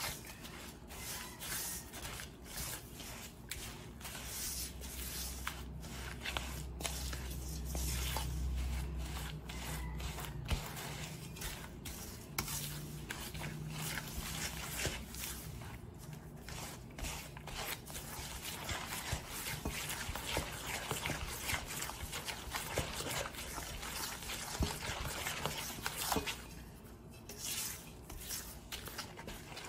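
A spatula stirring and scraping thick, wet cookie batter in a stainless steel bowl, beating eggs into creamed butter and sugar: a steady run of soft, sticky scrapes against the metal. A low hum sits under the first third.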